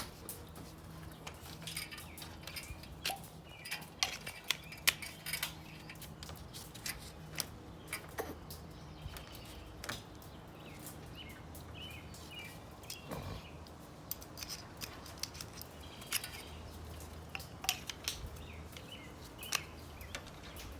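Irregular metallic clicks and scrapes of hand work on old screws holding a metal downspout elbow, with birds chirping in the background.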